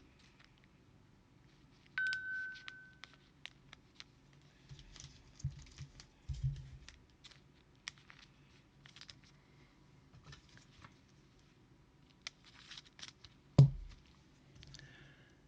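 Trading cards and foil pack wrappers being handled on a table: scattered light clicks, rustles and crinkles. A short ringing tone sounds about two seconds in, and a single loud knock comes near the end.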